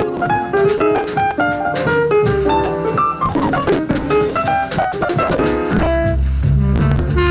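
Instrumental jazz playing on the radio: quick runs of notes over a low accompaniment, with a strong bass line coming in about six seconds in.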